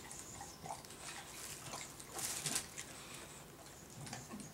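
A dog gnawing on a plastic water bottle: faint crackling and clicking of plastic, with a louder crinkling crunch about two seconds in.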